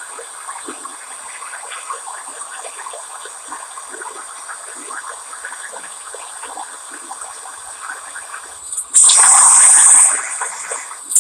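Handheld gas torch flame hissing steadily with light crackling while it heats a copper pipe joint for soldering. About nine seconds in, a much louder hissing blast lasting about a second cuts in and stops abruptly.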